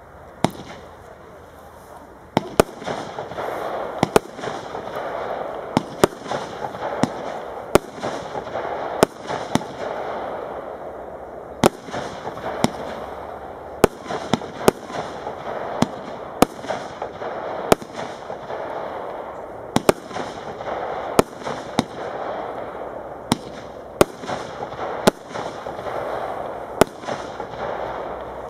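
Royal Fireworks 'Sole Luck' firework cake firing shot after shot: sharp bangs about every second, over a steady noise that builds up a couple of seconds in.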